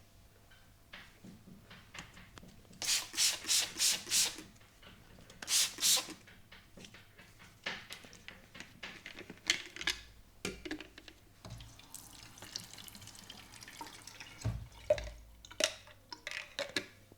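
Wet liquid sounds from a face massage with aloe vera: a quick run of five short hissing bursts, two more a second or so later, then softer wet clicks and pats.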